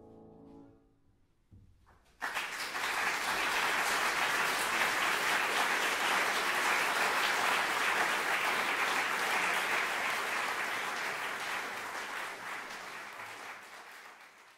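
A grand piano's last chord dies away, then audience applause breaks out about two seconds in and goes on, fading near the end.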